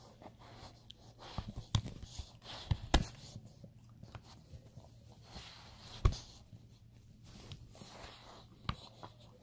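A dog chewing and mouthing a toy, with several sharp knocks, the loudest about three and six seconds in.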